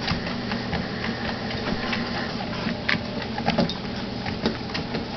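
Motorized treadmill running at a slow walking speed with a steady motor hum and belt noise, and the irregular tapping of a puppy's paws on the moving belt.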